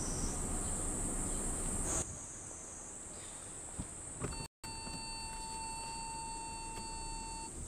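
Steady high buzzing of insects in summer trees, with a low rumble under it for the first two seconds. About halfway in, a steady beeping tone with overtones comes in and holds until near the end.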